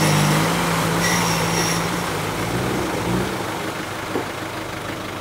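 Land Rover Defender engine running at a steady pitch under load, then easing off about three seconds in so that the engine note fades away.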